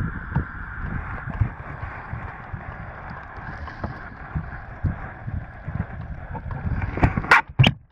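Wind buffeting the microphone and small waves lapping against a kayak, over a steady hiss. A few sharp knocks come about seven seconds in, just before the sound briefly cuts out.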